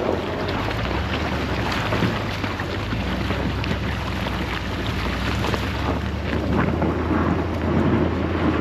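Wind buffeting the microphone in the open cold, over a steady low hum.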